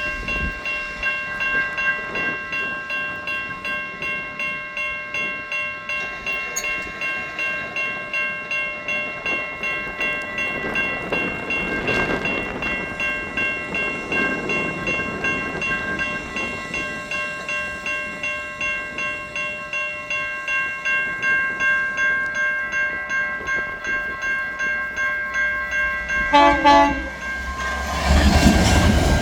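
Siemens electronic railroad-crossing bells ringing, a steady metallic ding repeating about twice a second. Near the end a locomotive horn gives a short blast, and the approaching train's noise swells as it reaches the crossing.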